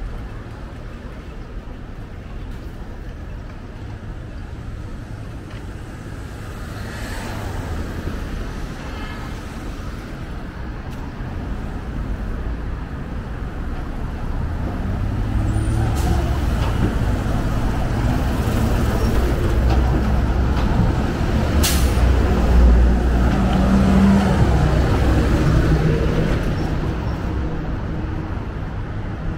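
Street traffic with a heavy vehicle passing close: its engine rumble builds over several seconds, peaks in the last third and then eases off. A short, sharp hiss of air brakes comes about two-thirds of the way through.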